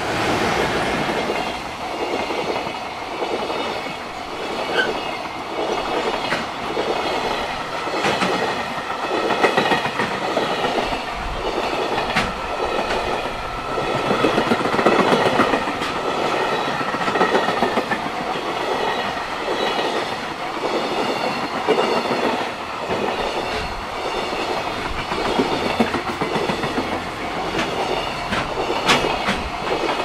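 JR Freight container train hauled by an EF210 electric locomotive passing close: loud clickety-clack of the wagons' wheels over the rail joints in an even rhythm, with a level-crossing warning bell ringing steadily.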